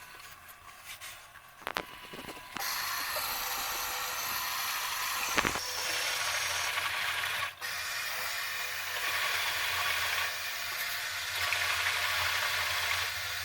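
Washing machine filling with water: a steady hiss of water rushing in through the inlet valve starts about two and a half seconds in, over a low hum, with a few sharp clicks, the loudest a little after five seconds.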